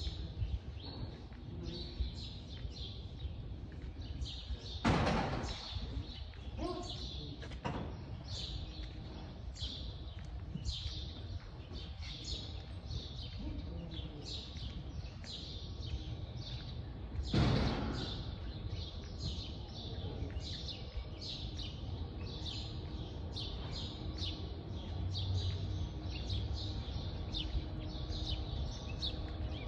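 Many birds chirping in quick, repeated short calls over a low background rumble, with two brief rushes of noise, one about five seconds in and one past the middle.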